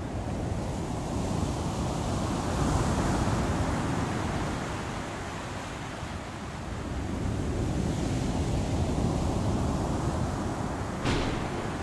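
Stormy sea waves surging with wind. The sound swells twice, and there is a brief sharp crack near the end.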